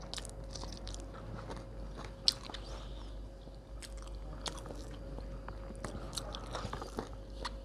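Close-up mouth sounds of a person eating with her fingers: chewing and biting a mouthful, with wet smacks and scattered small clicks. One sharper click comes a little over two seconds in.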